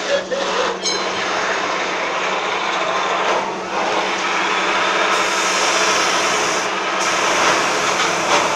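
Steady mechanical running noise with a constant low hum, with a harsher high hiss cutting in abruptly about five seconds in.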